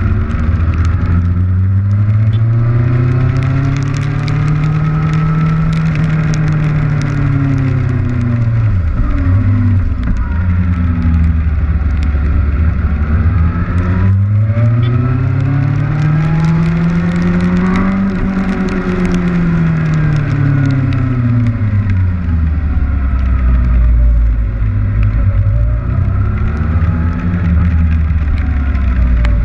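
Kawasaki Ninja motorcycle engine climbing and dropping in pitch twice as the bike speeds up and slows in traffic, with a smaller rise near the end. Rain hits hard against the camera throughout, a scattered crackle over the engine.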